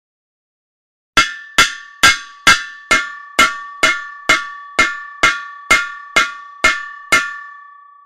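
Hammer striking metal: after about a second of silence, a steady run of fourteen sharp clanging blows, about two a second. Each blow leaves a high metallic ring that carries on and fades after the last one.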